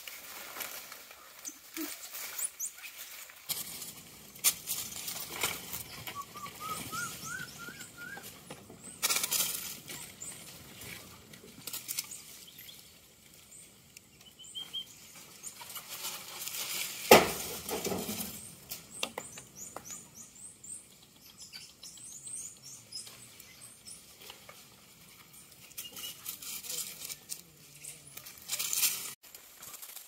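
Squirrel monkeys scampering through dry leaf litter and branches: scattered rustling, pattering and small snaps, with a few short runs of high chirps and one sharp crack about halfway through.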